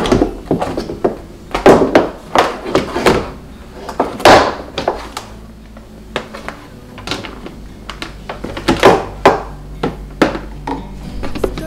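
Stiff plastic boxes and trays of a bean-sprout growing set knocking and clattering as they are handled and fitted one onto another. The knocks are irregular and hollow-sounding, loudest about 2 s and 4 s in.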